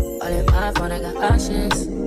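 Background music with a steady beat: deep bass and a recurring kick drum under sustained melodic tones.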